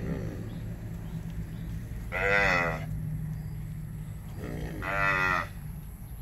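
Cattle mooing: two drawn-out calls, one about two seconds in and a longer one about five seconds in.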